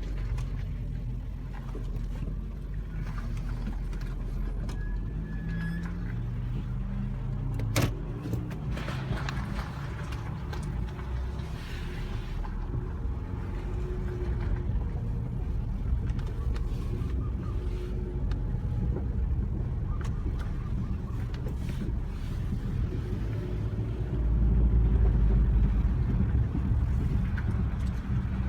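Nissan car running with a low, steady rumbling grind, the noise whose cause the owner does not know. There is one sharp click about eight seconds in, and the rumble grows louder for a couple of seconds near the end.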